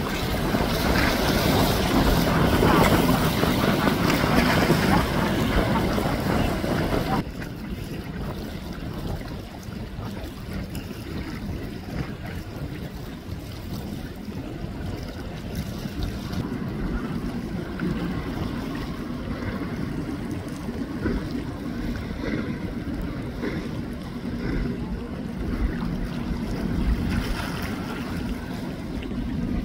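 Wind buffeting the microphone over the rumble of a boat on open water. About seven seconds in, the sound drops abruptly to a quieter, steady low hum with water noise.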